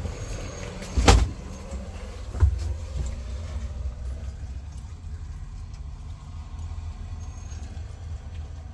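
A single loud thump about a second in, a lighter knock about a second later, and a few faint clicks over a steady low rumble.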